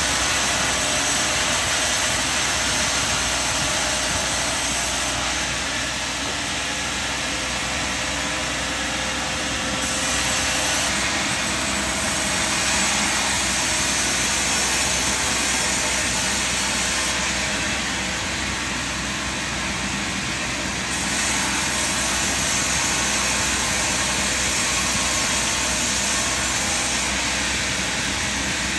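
Sawmill machinery running steadily, an even engine-like noise with small shifts in level every few seconds.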